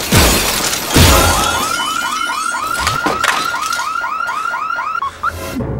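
Two heavy thumps, then a car alarm sounding a rapid repeating whoop, about four or five a second, which cuts off near the end.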